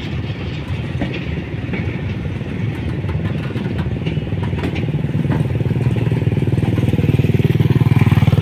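Railway flat wagons rolling slowly along the track with a few wheel clicks. From about halfway through, a motorcycle engine comes closer and grows louder, ending as the loudest sound.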